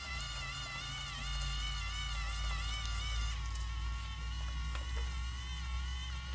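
Small electric gear motor of a Run-Chicken automatic chicken door running as it raises the door, a steady thin whine whose pitch wavers slightly up and down.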